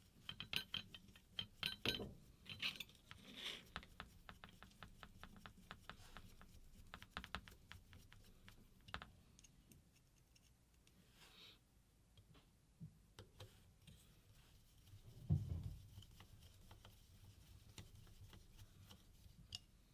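Light clicks and scrapes of hands fitting a circuit board and small parts into a paintball marker's grip frame, with one louder knock about fifteen seconds in.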